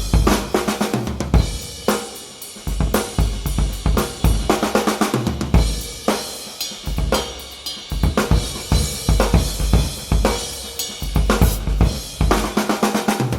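Vintage Gope acrylic drum kit played as a full groove: bass drum kicks, snare strokes from a 14x5 aluminium Pinguim snare, and a continuous wash of Paiste cymbals and hi-hats.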